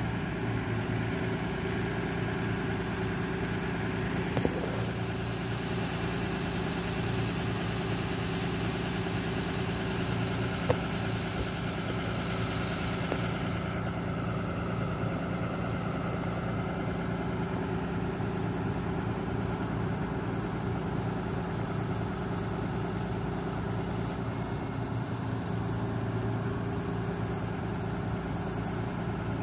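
Ford F-750 bucket truck's engine idling steadily while the hydraulic aerial boom is raised, with a few sharp clicks.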